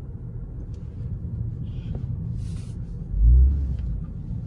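Low, steady rumble of a car moving slowly, heard from inside the cabin, with a brief loud low boom about three seconds in.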